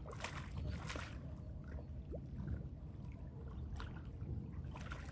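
A hooked fish splashing and thrashing at the water's surface as it is played on a pole line: a few short splashes, one soon after the start, one about a second in and two more near the end, over a low steady rumble.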